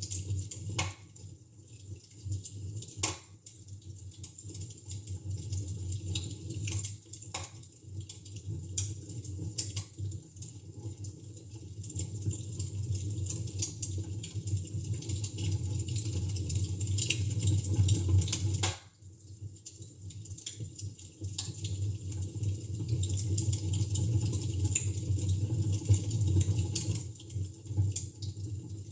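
Wood fire in a fireplace crackling and popping steadily, with a few louder pops in the first several seconds.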